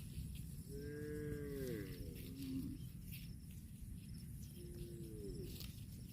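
A cow mooing twice: a longer moo about a second in and a shorter one near the end, each holding a steady pitch and then falling away. A steady low rumbling noise runs underneath.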